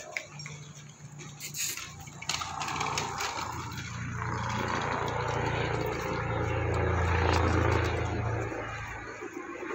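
A motor vehicle's engine running close by as it passes, a low hum that builds to its loudest near the end and then fades out, over general street noise.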